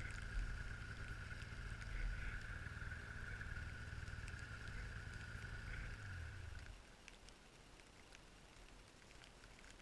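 Snowmobile engine running steadily, a low rumble with a high whine over it, that cuts off about seven seconds in, leaving faint background hiss.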